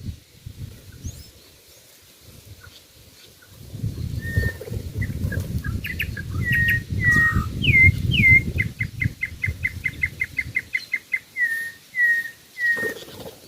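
A songbird singing clear whistled notes, some slurring downward, with a quick run of about a dozen even notes a second in the middle of the song. A low rumbling noise lies under most of the song.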